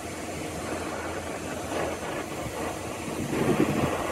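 Oxy-fuel torch flame rushing steadily as it heats a steel rod red-hot for bending, with a louder, rougher stretch a bit after three seconds in.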